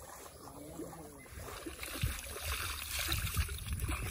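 Shallow water splashing and trickling around a person standing in a pond while being rinsed off. About a second in it becomes louder and closer.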